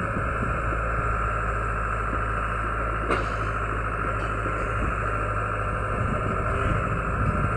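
Excavator engine running steadily, with one short sharp click about three seconds in.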